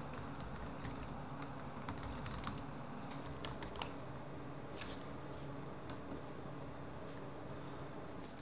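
Typing on a Dell laptop keyboard: a quiet, irregular run of key clicks, over a faint steady low hum.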